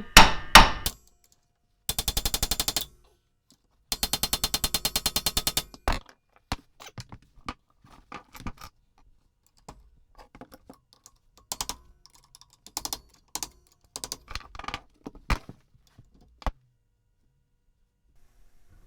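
Two bursts of rapid hammering from an air tool, the second longer, then scattered metallic clinks and knocks of tools and parts being handled.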